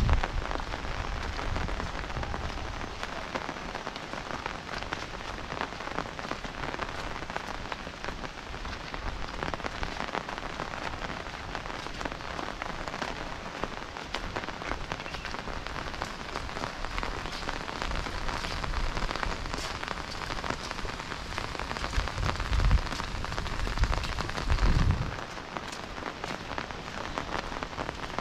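Steady rain falling on leaves and a wet brick path, with many scattered drops ticking. Two short low rumbles come a few seconds before the end.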